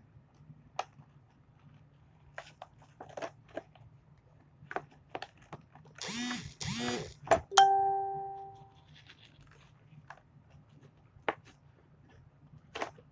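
Plastic toy packaging being handled and opened: scattered clicks and crinkles, with a louder squeaky noise lasting about a second partway through. Just after the squeak comes a sharp strike with a short ringing ding that fades away.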